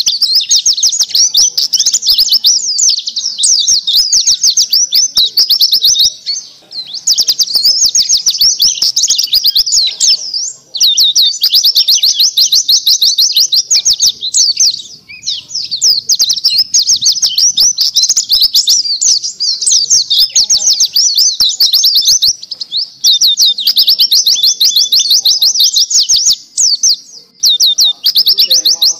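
Caged white-eye (pleci dakun) singing a fast, high-pitched warbling song of rapid trills. It runs in long, nearly unbroken phrases with only a few brief pauses.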